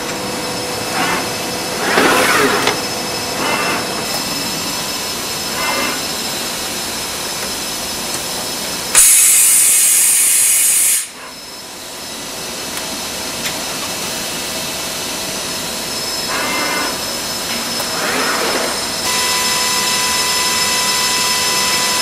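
Okamoto IGM-15CNC ID grinder running a cycle: a steady machine hum with several high steady tones, interrupted by short bursts of grinding noise and a loud hiss lasting about two seconds, starting about nine seconds in.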